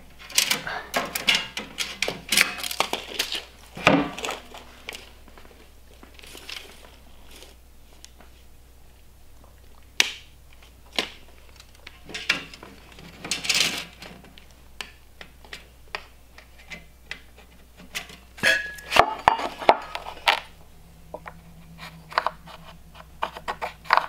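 A steel tape measure being handled against a steel-tube box frame: scattered clicks, light metal clinks and scrapes, in clusters, with one sharper knock about four seconds in.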